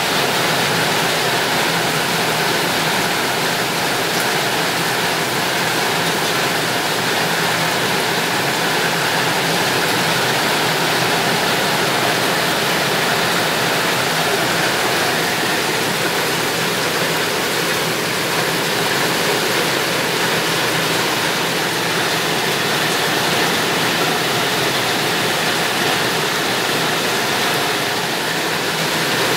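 Heavy tropical rain pouring down on a garden, a steady, dense hiss.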